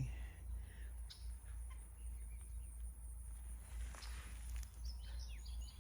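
Faint bird calls, likely poultry, over a steady low rumble.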